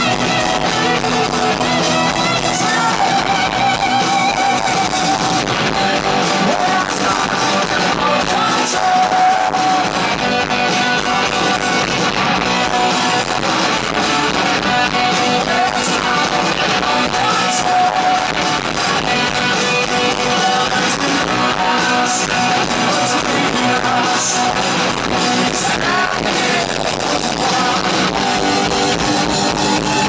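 Live rock band playing loud with electric guitars and drums, a male lead singer singing over them.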